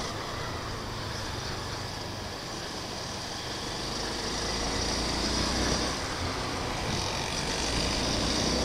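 A Honda CB Twister 250F's single-cylinder engine running under way, with wind rushing over the microphone. It gets louder from about three seconds in as the bike picks up speed.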